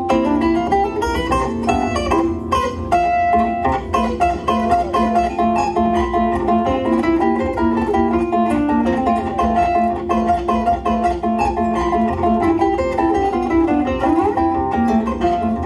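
Concert zither played solo: a quick plucked melody over a steady, repeating accompaniment in the lower strings.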